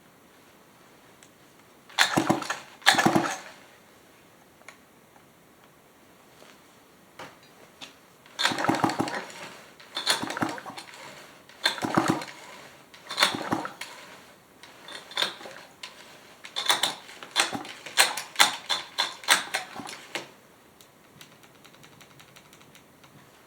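Recoil starter cord of a Remington SL9 chainsaw pulled over and over, each pull a short ratcheting whirr with no engine firing. There are a few spaced pulls, then a fast run of shorter tugs near the end. This is a check for spark on a saw that won't fire.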